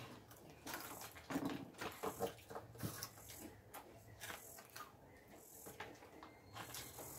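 Faint, scattered clicks and rustles of small plastic clothespins being handled at a table.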